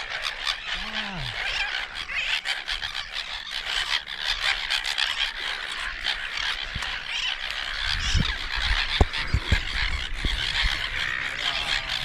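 A nesting seabird colony, many birds calling over one another in a dense, continuous chatter. A few low thumps on the microphone come near the end.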